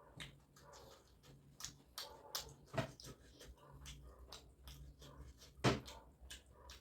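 Close-up eating sounds of chicken momos being chewed: irregular wet mouth clicks and smacks, with two louder smacks about three seconds in and near the end, over a faint low hum.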